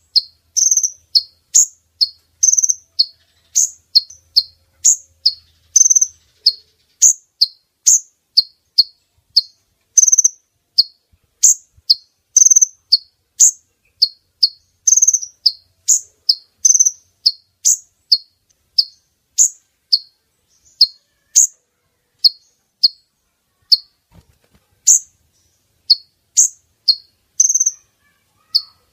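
Female kolibri ninja (a sunbird) calling: short, high, sharp chirps repeated about twice a second, a bird-lure call that draws in males.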